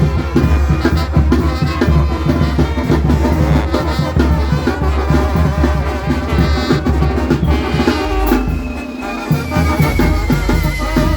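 Loud music with a steady drumbeat and heavy bass. Near the end, a long tone slowly falls in pitch.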